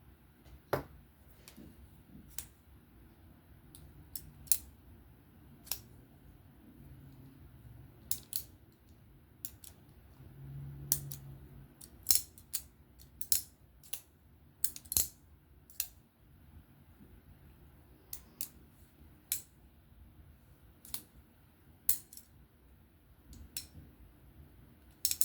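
Titanium folding knife being flicked open and shut over and over: a couple of dozen sharp metallic clicks and snaps, spaced irregularly, as the blade comes off its detent and snaps into lock.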